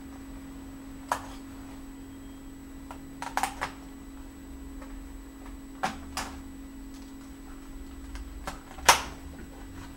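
Sharp plastic clicks and snaps as a Samsung R540 laptop keyboard's retaining tabs are pried loose and the keyboard is lifted from its frame: one click about a second in, a quick run of clicks around three and a half seconds, two more near six seconds and the loudest snap near nine seconds. A steady low hum runs underneath.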